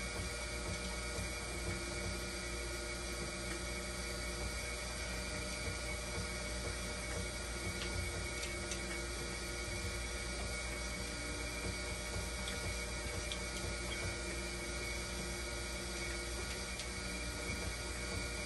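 Hemodialysis machine running: a steady hum with several held tones from its pumps and water flow. A few faint clicks come through.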